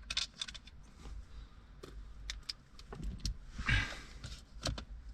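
Scattered plastic clicks and knocks as a car's center-console cupholder trim is worked loose and unclipped by hand, with a short scraping rustle a little before the end.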